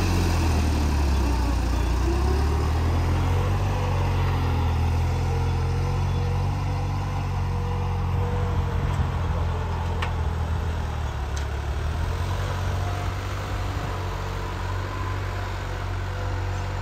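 New Holland 3630 Special Edition tractor's three-cylinder diesel engine running steadily while it pulls a tine cultivator through ploughed soil. The engine pitch sags about a second in and picks back up by about three seconds. The sound then slowly fades as the tractor moves away.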